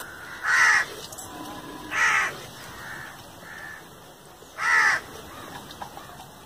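A crow cawing three times, each caw short, hoarse and falling in pitch, about two seconds apart.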